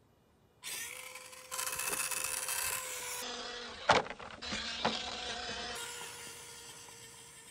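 Axial SCX24 Jeep JL micro RC crawler: its small electric motor whines steadily under scraping and rustling noise. About four seconds in a sharp knock, the loudest sound, comes as the truck tumbles over, with a smaller knock a second later.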